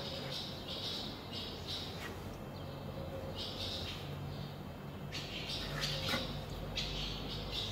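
A plastic spreader scraping polyester body filler across a car's steel panel in repeated short strokes while filling dents.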